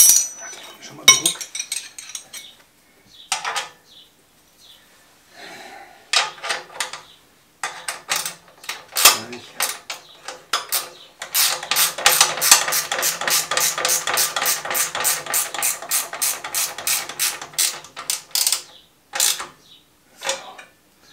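Ratchet wrench clicking rapidly and evenly, about five clicks a second for some seven seconds, as it tightens the mounting bolts of an exhaust silencer. Before it come scattered clinks and knocks of metal tools.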